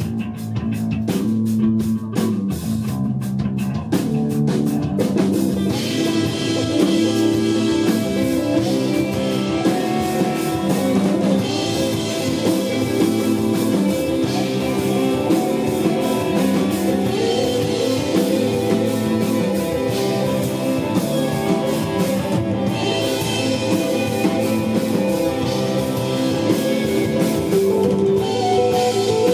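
Live desert rock band playing, laid-back, with drum kit and guitar; the full band swells in about five seconds in.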